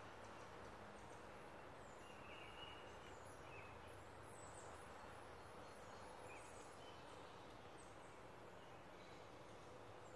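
Faint outdoor ambience: steady low hiss with distant birds chirping briefly now and then.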